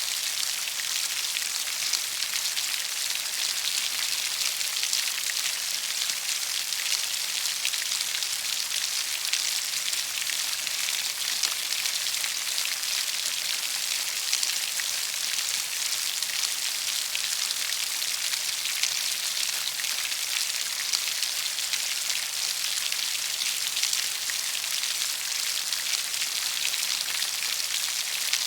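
Steady rain falling, an even hiss of many small drops pattering on a surface.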